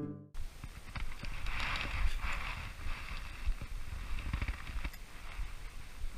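Outdoor rumble with irregular soft knocks and a faint hiss, which swells briefly about two seconds in; a guitar music sting cuts off at the very start.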